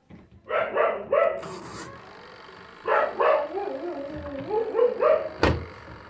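A dog barking in quick runs of two or three barks, with a sharp knock about five and a half seconds in.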